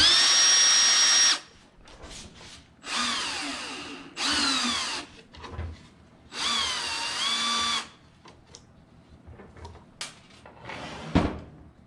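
Electric drill/driver running in four short bursts as screws are backed out. The first burst holds a steady high whine, the next two fall in pitch as they run, and the last dips and then rises again. A single knock comes near the end.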